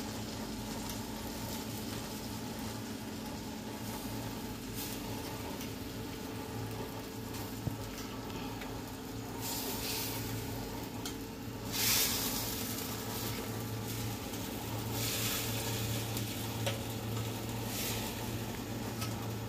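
Marinated chicken pieces sizzling in oil and butter in a stovetop oven pan as they are turned over, over a steady low hum. The sizzle surges louder several times, most sharply about twelve seconds in.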